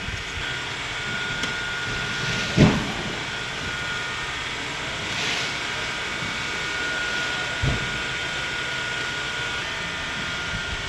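Steady fan-like background hum with a faint thin whine, broken by a single thump about two and a half seconds in and a softer knock near eight seconds, as a bicycle is stood upright on the floor.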